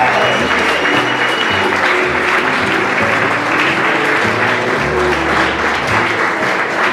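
Crowd applauding steadily over music.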